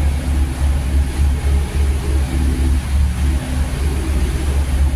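Passenger ferry's engine running with a steady low throb, pulsing about four times a second, under an even hiss of wind and water.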